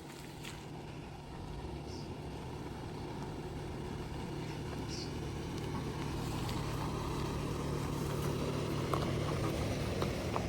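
A steady low engine hum, like a running vehicle, that grows gradually louder, with a few faint ticks near the end.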